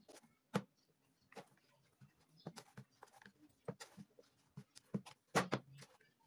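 Hands kneading mandazi dough in a plastic basin: irregular soft slaps and knocks of dough and basin, with louder ones near the start and about five seconds in.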